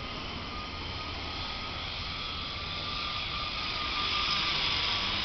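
X-350 electric RC helicopter in flight overhead, its motor and rotors giving a steady high whine that grows louder about three seconds in as it comes closer.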